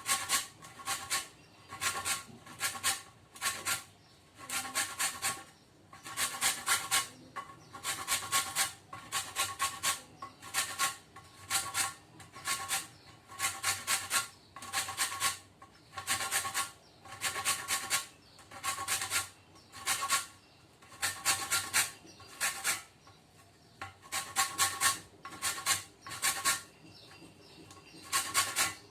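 Lemon rind rubbed against a fine hand grater to zest it: short runs of quick rasping strokes with brief pauses between runs.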